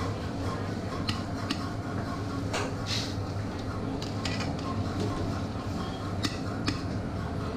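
Steel perforated ladle clinking and tapping against an iron kadai several times as batter is tapped through it into hot oil, over the sizzle of deep-frying and a steady low hum.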